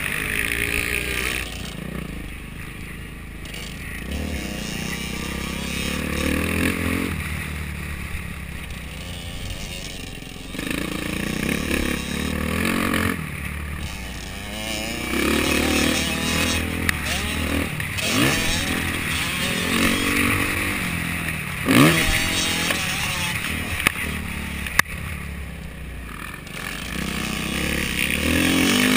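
Dirt bike engine revving up and falling back again and again as it is ridden around a motocross track, with a few sharp knocks and rattles in the second half.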